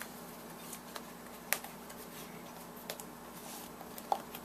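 A few faint clicks and taps of hands handling a David Clark Model 310 earmuff's plastic ear cup and headband, the sharpest about one and a half seconds in, over a faint steady hum.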